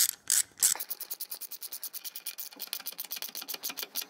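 Ratchet socket wrench clicking fast and evenly, about twelve clicks a second, as a 13mm socket is spun by hand to run a bolt up into a rubber-grommeted mounting, after a few sharper clicks at the start.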